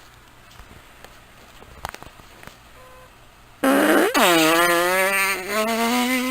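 A long, buzzy fart that starts about three and a half seconds in. Its pitch dips sharply right after it begins, then holds low and steady, creeping slightly upward.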